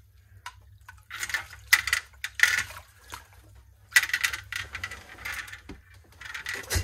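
Water splashing with light clinks at an ice-fishing hole, in several short irregular bursts, as a hooked burbot is brought up to the surface.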